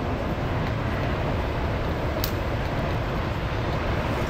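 Steady low rumble of wind and heavy surf, with one faint click about two seconds in.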